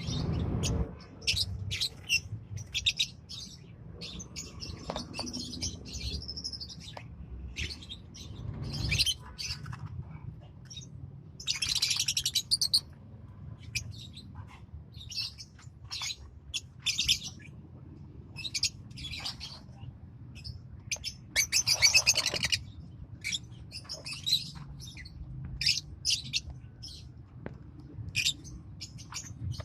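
Lovebirds chirping constantly in rapid short high calls, with two louder, harsher screeching calls along the way.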